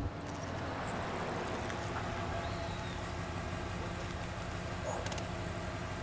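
Minivan engine idling at the curb, a steady low running noise with the hum of the street around it.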